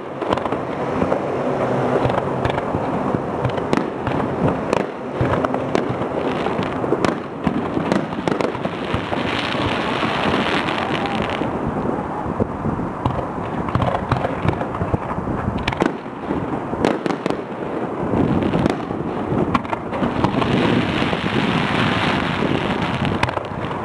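Fireworks display going off continuously: many sharp bangs and pops of shells bursting, over a dense steady crackle.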